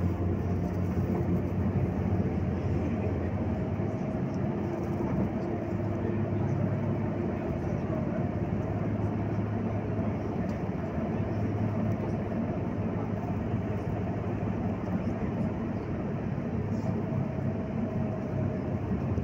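Inside a Volgabus-5270.GH city bus under way: a steady engine hum with road and cabin noise while the bus drives.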